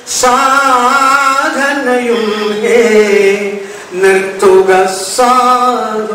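A man's voice chanting Malayalam verse in a sung melody through a microphone, holding long notes with a slight waver, with short breath breaks about four and five seconds in.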